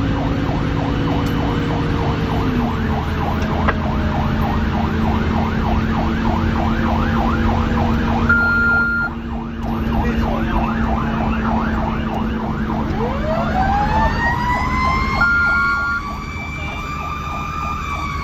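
Fire engine running with its electronic siren on a fast, repeating yelp over the steady rumble of the truck's engine. About 13 seconds in, a second siren winds up with a rising wail and holds a high pitch. Two short high steady tones sound, the first about 8 seconds in and the second about 15 seconds in.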